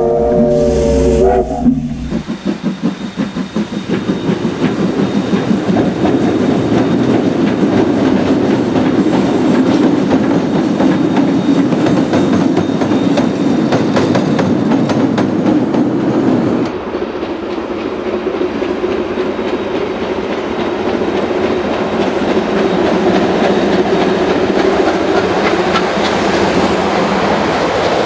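NZR Ab class Pacific steam locomotive Ab 608: its steam whistle sounds for about the first second and a half. The locomotive then works away in rapid pulsing beats and settles into a steady rush of steam and running train. The sound turns duller about two-thirds of the way through.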